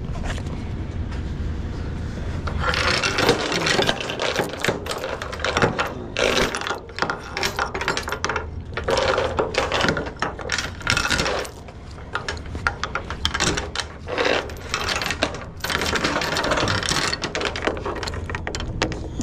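Steel securement chain clanking and rattling, link on link, as it is pulled and dragged across a flatbed trailer's wooden deck. Irregular clatter starting a couple of seconds in and going on throughout.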